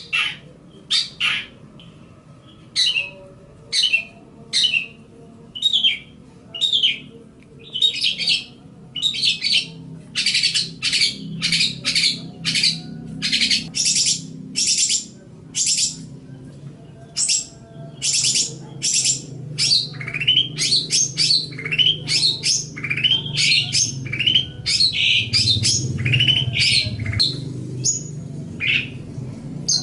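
Long-tailed shrike (cendet) singing. Its short, scratchy notes come about one a second at first, then crowd into rapid runs past the middle. A steady low hum sits underneath.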